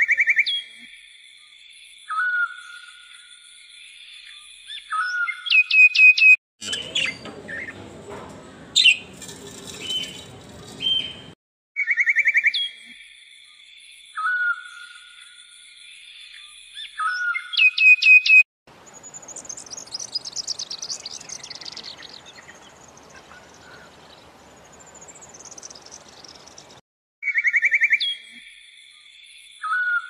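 Birdsong as a backing track: short bird chirps and trills over a steady high tone, with two longer stretches of hiss, the same sequence repeating as a loop.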